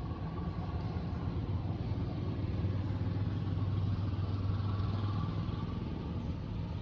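A steady low engine hum, swelling a little in the middle and easing near the end.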